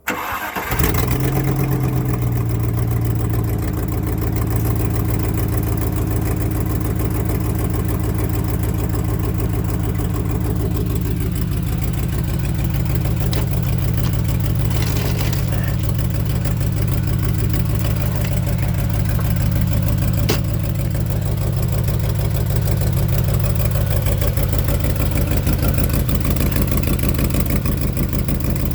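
1998 Land Rover Discovery engine cranking and starting about half a second in, running at a fast idle that settles lower within a few seconds, then idling steadily with a fine even pulsing. The owner takes the sound for an exhaust leak at the driver's-side exhaust manifold gasket.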